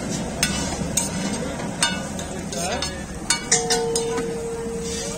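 Metal spatula clinking and scraping on a flat iron griddle as it is worked under a stacked omelette, with several sharp clinks. A steady tone sets in about three and a half seconds in.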